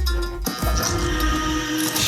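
Electronic dance music with deep bass and sustained synth tones, dropping out for a moment about half a second in.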